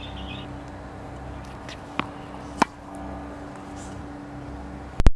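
Steady background hum with two short, sharp knocks about half a second apart near the middle, then a loud double click at the very end.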